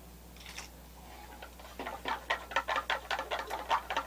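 A quick run of small sharp clicks and ticks, several a second, starting about two seconds in, over a low steady hum.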